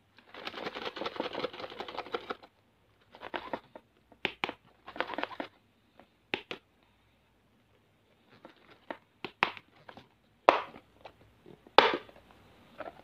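A hard plastic lunch box is picked up and handled, with rustling and scraping for the first couple of seconds. Then come a series of separate sharp plastic clicks and knocks, the loudest near the end, as its clip-shut lid is worked at.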